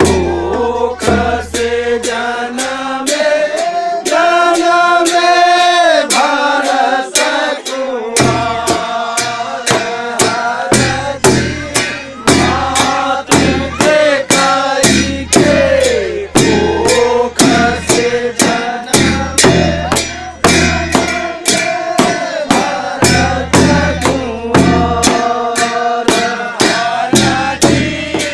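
A group of men singing a Kumaoni khadi holi song together, with sharp beats keeping time about twice a second.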